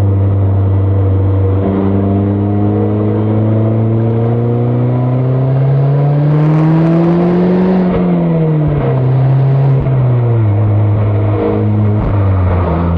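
Mazda ND Roadster (MX-5) four-cylinder engine and exhaust under way. The engine note climbs steadily for about eight seconds as the car accelerates, then drops away over the next two or three seconds and settles to a steady cruise.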